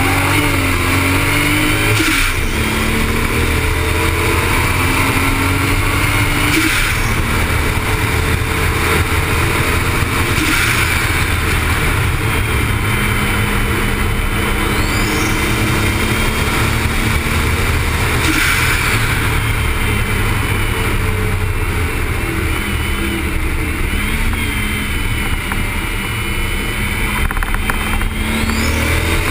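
Toyota Supra's engine under hard acceleration on track, its pitch climbing and then dropping sharply at each upshift, about three times, with a long steadier stretch in the middle. Heavy wind and tyre noise run underneath.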